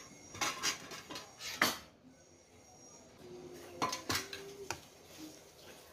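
Dishes and spoons clinking as rice is served onto plates and a stainless steel divided tray: several sharp clinks, a group in the first two seconds and another around four seconds in.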